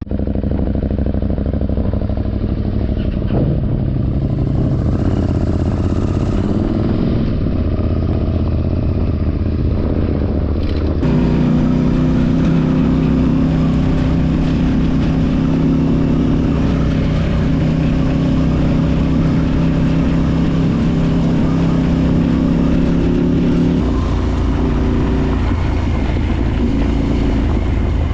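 Parallel-twin adventure motorcycle engine running steadily while riding, with road and wind noise. About eleven seconds in the sound cuts to a louder, steadier engine note, which shifts again a few seconds before the end.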